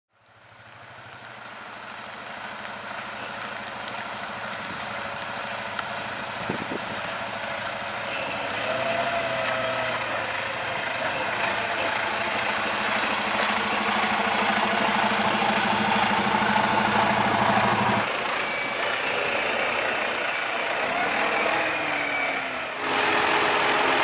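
Truck engine running, fading in from silence and growing gradually louder, with a steady low hum; the sound changes abruptly about three quarters of the way in and again near the end, ending on a steadier idling note.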